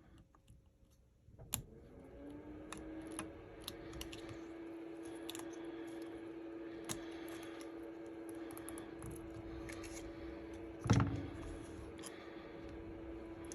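Small clicks and taps of hand tools on phone parts during a smartphone teardown. About two seconds in, a steady hum starts, rising briefly in pitch like a small motor spinning up, and runs on. A louder knock comes near the end.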